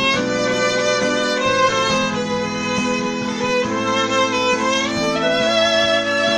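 Instrumental music: a violin plays a slow, gliding ballad melody with vibrato over sustained chords.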